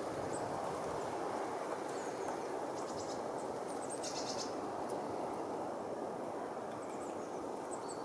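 Great spotted woodpecker pecking at a pinecone wedged in tree bark, a quick run of taps about four seconds in, over a steady outdoor rushing noise. Faint high chirps of small birds come and go.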